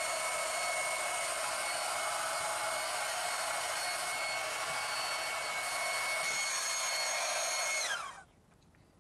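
Small 110-volt electric air inflator pump running steadily with a high whine, blowing air into a waterbed's sponge chamber to inflate it before filling. About eight seconds in it is switched off and its whine falls as it spins down.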